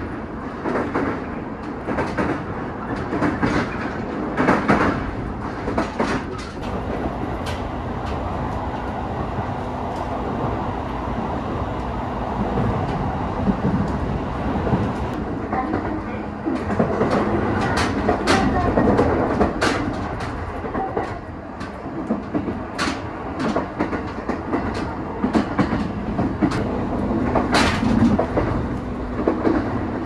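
Local train on the Oito Line running steadily, heard from inside the carriage: a continuous rumble with the clack of the wheels over rail joints coming through irregularly.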